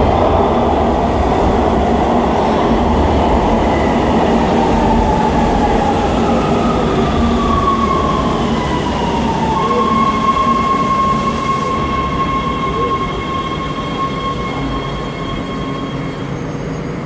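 Los Angeles Metro subway train at a station platform: a loud rumble, with a high whine that falls in pitch a little before the middle and then holds steady before fading near the end.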